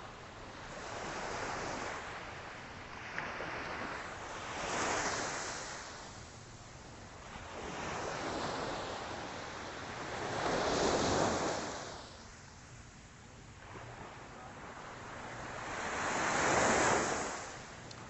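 Small Atlantic waves breaking on a beach, surf swelling and washing in every few seconds, with the loudest crashes about five, eleven and seventeen seconds in. Light wind on the microphone.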